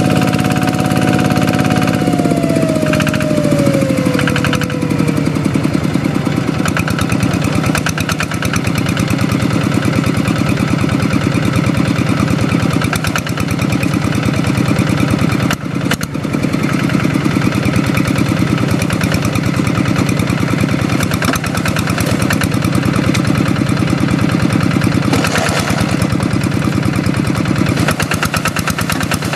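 Two-wheel hand tractor's single-cylinder diesel engine running under load as it works a flooded rice paddy. About two seconds in, its pitch drops, then it runs on steadily.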